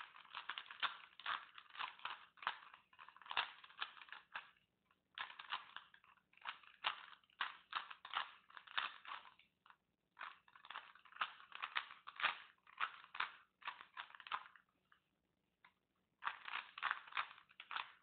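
Plastic Rubik's cube being turned by hand: rapid clacking of the layers in runs of several seconds, broken by three short pauses.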